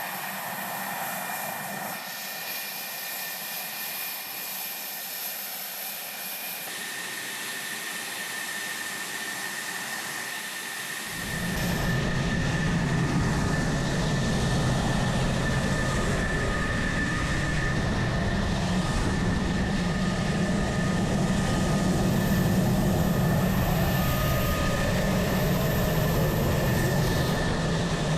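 Fighter jet engine running at idle with a steady high whine over a rushing noise; about eleven seconds in, a deeper rumble joins and the sound gets louder.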